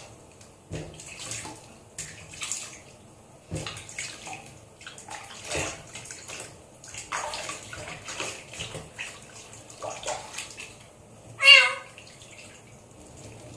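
Water splashing and sloshing in short irregular bursts as a kitten is washed, then near the end one loud, wavering kitten meow.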